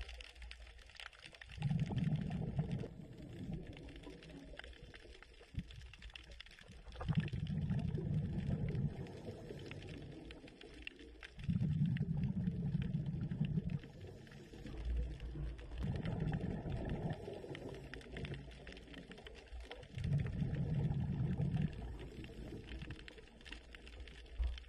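Underwater sound of a scuba diver breathing through a regulator: a low bubbling burst of exhaled air lasting about two seconds, repeating roughly every four to five seconds, with quieter water noise between breaths.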